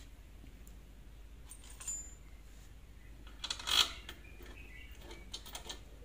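Light clicks and a short clatter of plastic and metal parts as the stator of an LG front-loader's direct-drive motor is handled and pressed back onto its mounting, the loudest clatter a little past halfway.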